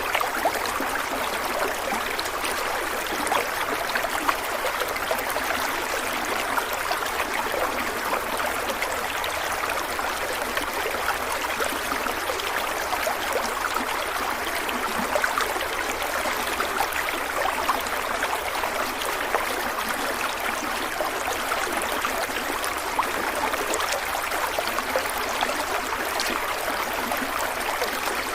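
Stream of water running steadily: an even rush of flowing water, flecked with small splashes.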